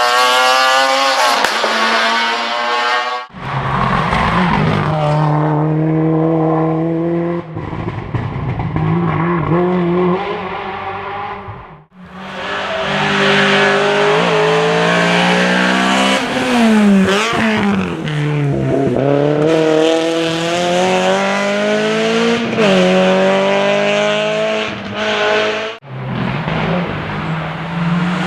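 Rally car engines revving hard, the pitch climbing through the gears and dropping on lifts and shifts, as several cars run the stage. The sound breaks off abruptly three times, where one shot is cut to the next.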